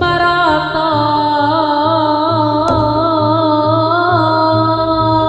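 Live jaranan accompaniment: a held, wavering lead melody that slides between notes, over a steady pulsing low drum beat.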